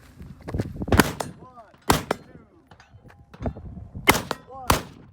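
Four rifle shots, a pair about a second apart and then a second pair closer together, each a sharp crack.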